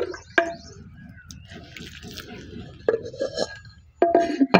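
A metal ladle clicking and clinking against a steel basin and a clay cooking pot, with water sloshing as chicken pieces are rinsed in hot water; a few knocks ring briefly, the loudest near the end.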